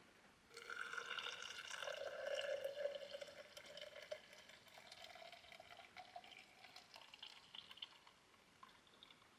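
Just-boiled water being poured into a vessel to brew coffee, its pitch rising slowly as the vessel fills, then tailing off into a few drips.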